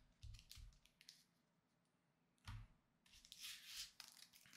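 Faint handling of Pokémon trading cards and booster packs on a desk: a few soft taps, a soft knock about halfway, then light crinkling of a foil booster wrapper near the end.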